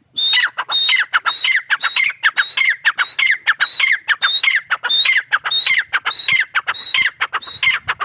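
Grey francolin (teetar) calling: a fast, unbroken run of loud, shrill notes, about two to three a second, each starting high and dropping in pitch. It starts and stops abruptly.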